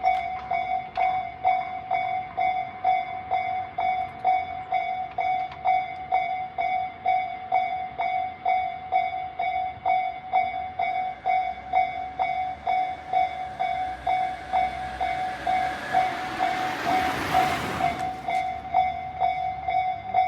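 Japanese railway level-crossing warning bell, an electronic bell of the Tobu Tojo-line type, ringing steadily about twice a second. About two-thirds of the way through a train passes over the crossing for several seconds, loudest just before the end, while the bell keeps ringing.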